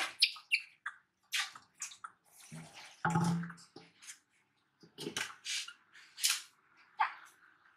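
Bath water splashing and dripping in a metal washbasin while a baby monkey is bathed, in short, separate splashes, the loudest about three seconds in.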